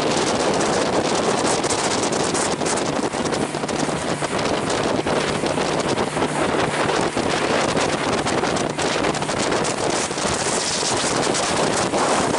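Wind buffeting the microphone over the steady run of a motorboat's engine, with water rushing and splashing along the hull as the boat runs through the chop.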